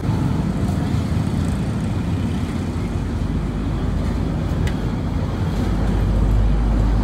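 Steady low rumble of street traffic, growing a little louder about five and a half seconds in.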